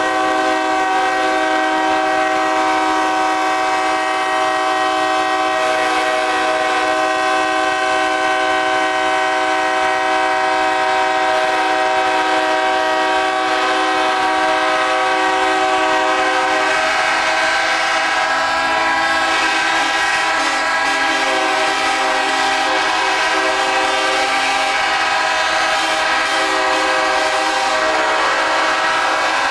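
Locomotive air horns blowing continuously, several notes sounding together as one loud, steady chord. The mix of notes shifts slightly about halfway through.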